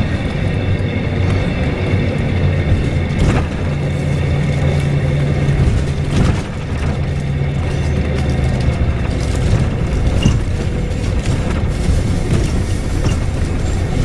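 Cabin sound of a Volvo B7RLE single-deck bus on the move: its diesel engine drones low and eases off about two-thirds of the way through. Under it runs a faint, steady high-pitched squeal, with a few sharp knocks, the clearest about three and six seconds in.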